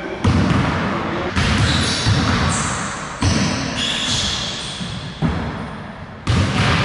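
Basketballs bouncing on a hardwood gym floor, several irregular thuds that ring on in the large hall.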